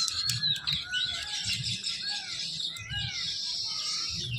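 Many small birds chirping and twittering at once, a dense overlapping chatter of short calls and gliding notes.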